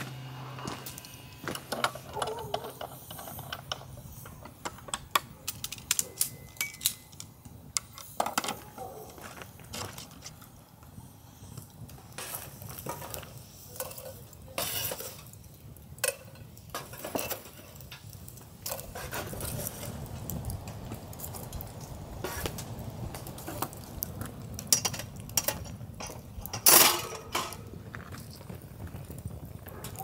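Stainless steel charcoal grill box and wire grill grate being handled: scattered metal clinks and clatters, with a louder clank near the end as the grate is set on the box over the coals.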